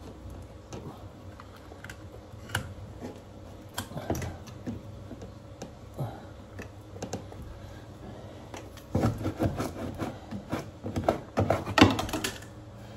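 Wallpaper being handled and worked around sink pipes: scattered crisp clicks and crinkles of paper, thickening into a quick flurry in the last few seconds.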